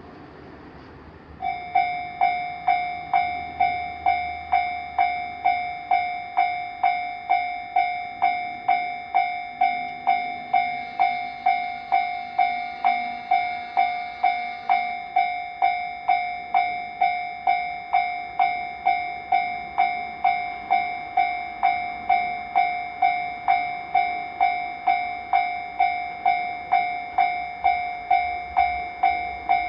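Japanese railway level-crossing warning bell switching on about a second and a half in. It then rings in a steady, even clang, a little under two strikes a second, each ringing out before the next. It is the alarm that an approaching train has activated.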